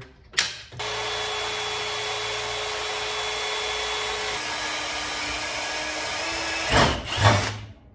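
Electric drill with a step bit (Unibit) boring holes in a steel mount plate: the motor runs steadily for about six seconds, its pitch dropping partway through as the bit loads up. A sharp click comes just before it starts, and a loud clatter comes near the end as it stops.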